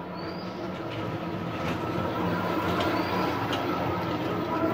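A steady machine-like rumble with a few held tones that grows gradually louder. Two short, high rising chirps sound above it, one just after the start and one about three seconds in.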